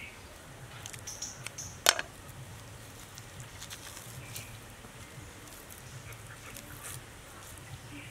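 Small clicks and handling noises of a snake's skin being peeled off by hand on a wooden chopping board, with one sharp knock a little under two seconds in. Brief high bird chirps sound in the background.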